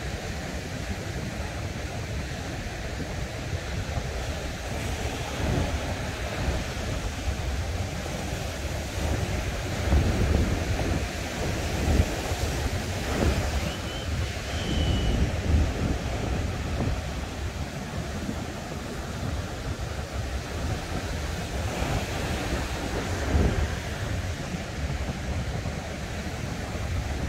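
Ocean surf breaking on the beach, a steady wash of noise, with wind buffeting the microphone in gusts that swell the low rumble several times.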